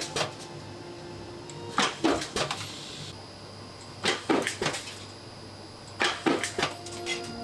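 Mechanical press stamping fountain-pen nib blanks out of a metal strip, giving clusters of sharp metallic knocks about every two seconds over a low steady hum.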